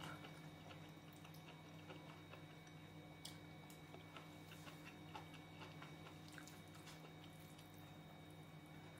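Near silence: faint closed-mouth chewing of curry noodles, with small scattered mouth clicks over a steady low hum.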